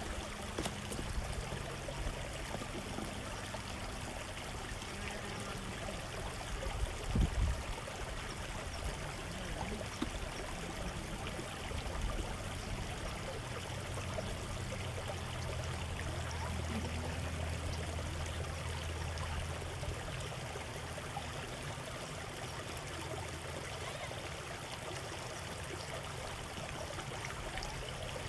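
Shallow creek water trickling over rocks, a steady running rush, with one brief low thump about seven seconds in.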